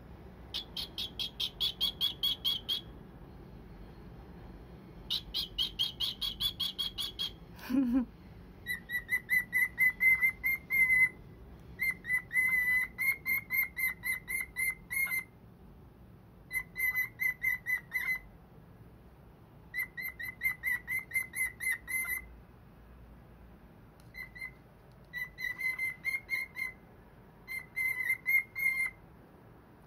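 Cockatiel chirping in quick runs of short repeated whistled notes, about eight a second. The runs last one to three seconds with short pauses between them. The first two runs are higher-pitched and the later ones settle on a lower note.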